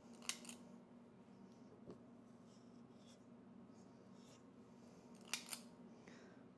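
Metal squeeze-handle cookie scoop clicking as its lever is worked to release balls of dough: one sharp click about a third of a second in, then two quick clicks about five seconds later, with faint room hum between.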